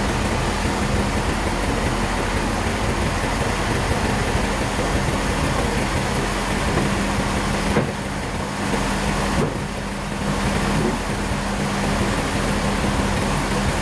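Sawmill machinery running: steady industrial noise with a constant low hum, dipping briefly about eight seconds in and again near ten seconds.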